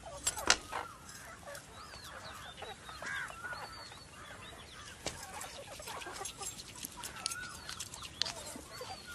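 Domestic chickens clucking on and off. About half a second in, a few sharp clicks, from a wooden door's bolt being drawn back.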